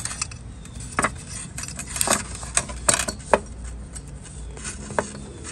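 Scattered sharp clicks and light clinks as the electrical plug is pushed onto a replacement Ford Mustang II headlight and the headlight is handled.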